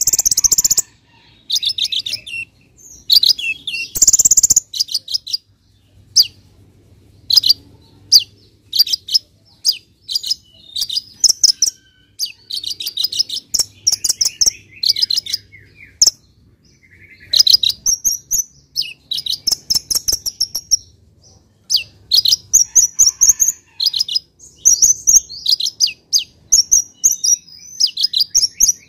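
Male Van Hasselt's sunbird (kolibri ninja) singing in full voice: rapid runs of short, high, sharp chirps and trills, coming in bursts with brief pauses between them. Two brief louder noisy bursts sound near the start, about four seconds apart.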